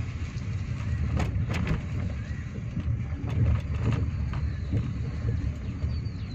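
Car driving on a country road, heard from inside the cabin: a steady low rumble of engine and tyres, with a couple of brief clicks about a second and a half in. Near the end a bird starts a quick run of short, high chirps.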